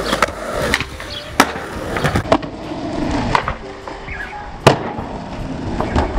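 Skateboard wheels rolling on concrete, with sharp clacks of the board. The loudest is a hard slap about three-quarters of the way through as the skater lands a jump down a stair set, then rolls on.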